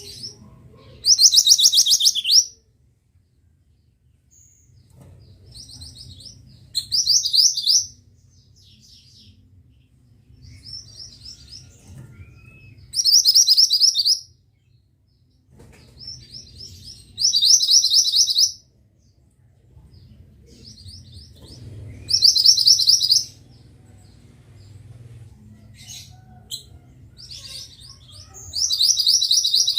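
Pied bushchat (burung mantenan) singing: six short phrases of rapid, rolling high notes, a few seconds apart, with softer chirps in between.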